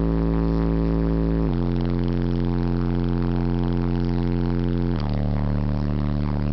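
Two Alpine Type-X subwoofers (SWX-1243D and SWX-1242D) on two Alpine MRD-1005 amplifiers playing long, loud sustained bass notes inside the car's cabin, the pitch stepping down twice, about a second and a half in and again near five seconds.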